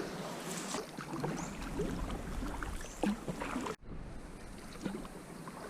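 Water splashing and lapping around a sea kayak on the move, with many small irregular splashes; the sound cuts out for an instant about two-thirds of the way through.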